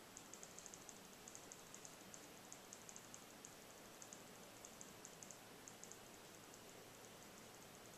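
Near silence: room hiss with faint, irregular high-pitched ticking in small clusters.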